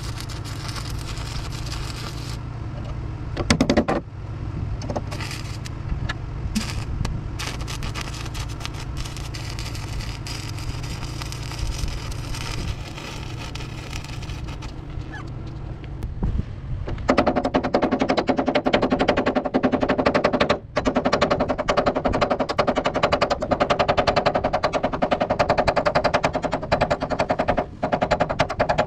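Welding arc crackling loudly and evenly as a repair plate is welded onto a truck's steel fender, starting about 17 seconds in and broken by two brief pauses. A steady low hum with lighter crackle comes before it.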